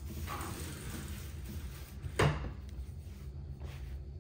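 A single sharp clunk in a kitchen about two seconds in, over a low steady hum.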